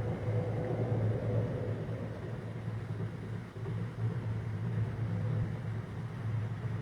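Steady low rumble under a faint hiss: outdoor background noise, with no distinct event standing out.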